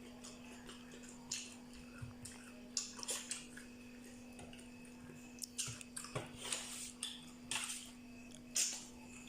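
Cutlery clinking and scraping against a dish in short, scattered strokes, with a faint steady hum underneath.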